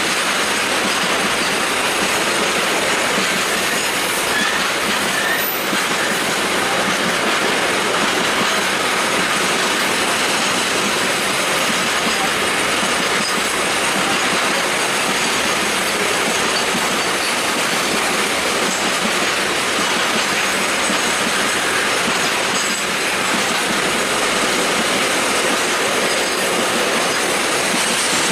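Indian Railways train running on the track, a steady, loud noise of wheels on rails that holds unchanged throughout.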